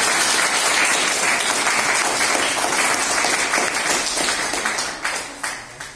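Audience applauding steadily, dying away to a few last claps near the end.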